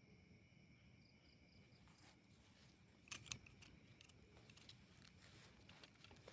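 Steady high trilling of night insects, with a run of faint crackles and sharp clicks starting about two seconds in, the loudest a little after three seconds.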